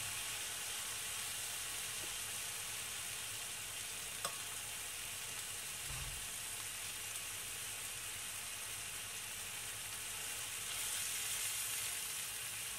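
Beef steaks searing in hot olive oil on a ridged grill pan, a steady sizzle over high heat. One light click a little over four seconds in.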